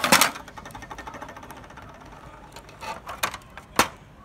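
Handling clatter of a printed circuit board, the laser printer's power board, knocking against the printer's plastic chassis and in the hands. A loud clatter at the start, a fast faint rattle, then a few sharp knocks near the end, the last the loudest.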